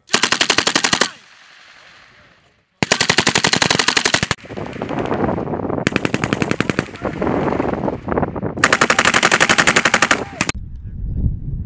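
M240B 7.62 mm belt-fed machine gun firing four bursts of automatic fire, the last and longest about two seconds, with quieter rumbling gunfire sound filling the gaps between the later bursts.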